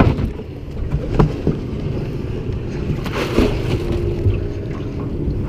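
Boat motor running steadily with wind on the microphone, and a sharp knock about a second in.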